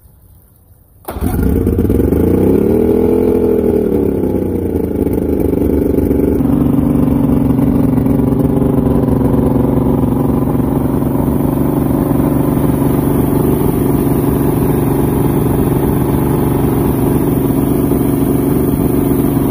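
Carbureted Mercury outboard engine catching about a second in, revving up and back down for a few seconds, then settling into a steady loud idle, cold and being run up to operating temperature.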